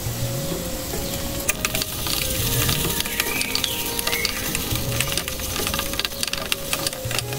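Metal cooking utensils clicking and clinking in quick, irregular strokes, over soft background music.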